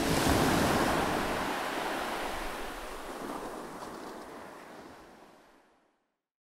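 Ocean surf washing, fading steadily away to silence near the end.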